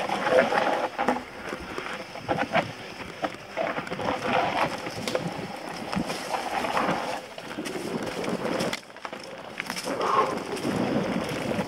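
Mountain bike descending a dirt forest singletrack: tyres rolling over dirt and dry leaves, with frequent short knocks and rattles from the bike over rough ground, and wind rushing on the microphone.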